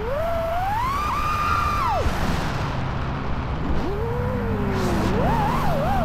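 Five-inch FPV quadcopter's brushless motors (Xing2 2207 1855kv) and propellers whining in flight, the pitch climbing and holding high, then falling sharply about two seconds in as the throttle is cut, and rising and wavering again from about four seconds as throttle comes back on.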